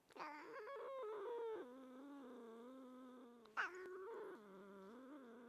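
Domestic cats in a standoff: a long, low, wavering growling yowl, with a sharper rising cry about three and a half seconds in.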